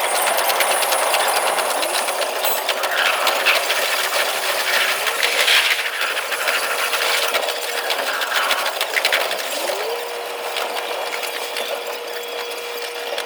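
JR East E721-series electric train running, its sound sped up tenfold into a dense, fast rattle of wheel and rail-joint clicks. A motor whine rises in pitch and then holds steady twice, about one and a half seconds in and again near the ten-second mark.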